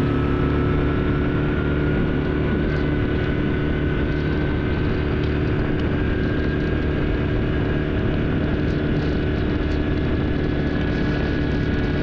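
Yamaha Grizzly 700 ATV's single-cylinder engine running steadily, heard from on board while it drives along a dirt road, with a thin whine that rises slightly in pitch over the first few seconds.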